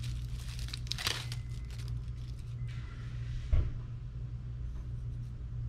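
Rustling handling noises as an oil filter is handled, with one thump about three and a half seconds in, over a steady low hum.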